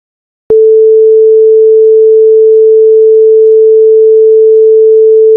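A single loud, steady, mid-pitched electronic sine tone that switches on abruptly about half a second in after silence and holds unchanged.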